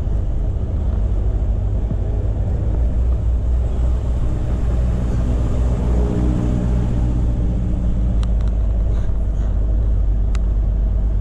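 Volvo lorry's diesel engine and road rumble heard from inside the cab while driving, a steady low drone with the engine note strongest about halfway through.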